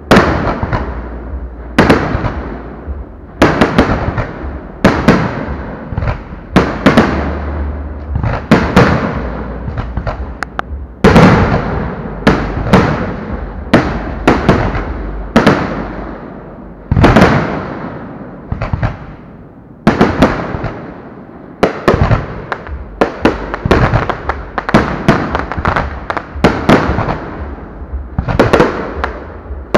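Aerial firework shells bursting in quick succession: sharp bangs about once a second, each trailing off in a rolling echo.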